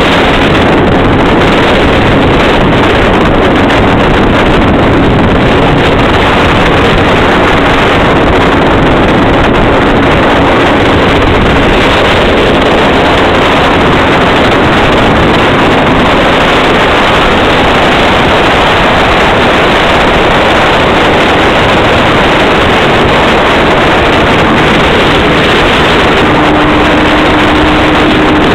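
MZ TS 125's two-stroke single-cylinder engine running at a steady cruising speed, under heavy wind rushing over the microphone. The engine note steps up slightly near the end.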